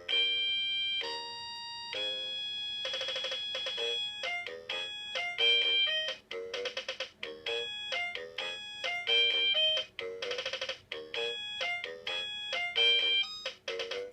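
Anpanman Pika Pika toy keyboard playing its built-in demo song: a bright electronic melody of short beeping notes over a simple accompaniment, with a few held notes that warble.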